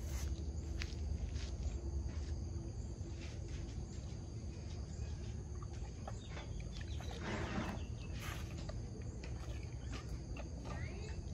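An Asian elephant eating cut fruit from a bowl, with scattered clicks and crunches as it works the food with its trunk and chews, and a louder rustling burst about seven seconds in. Under it run a steady low rumble of wind on the microphone and a constant high insect drone, with a short bird chirp near the end.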